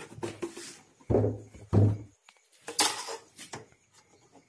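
Steel ruler being handled against a plywood speaker cabinet: two knocks about a second in, then a brief metallic clatter a little before the three-second mark.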